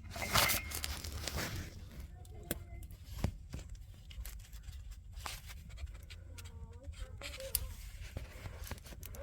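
Hands unclipping an oxygen sensor's plastic wiring connector: scattered light clicks and rustling, with a few sharp snaps spread through.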